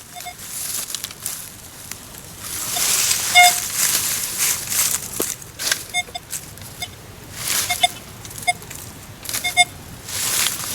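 Metal detector beeping in short tones, singly and in quick pairs, about eight times while the hunter searches a dig hole for a target that has not yet been located. Scraping and rustling of soil and twigs comes between the beeps.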